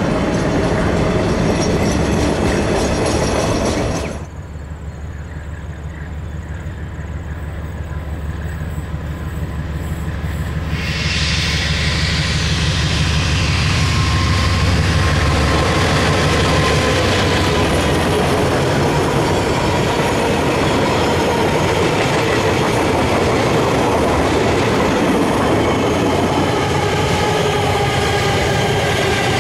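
Container wagons of a freight train rolling past with clattering wheels. After a sudden change about four seconds in, a KiwiRail DX-class diesel-electric locomotive approaches with a low engine drone that grows louder as it nears, passing at about fifteen seconds. Its container wagons then clatter by, with a thin steady wheel squeal.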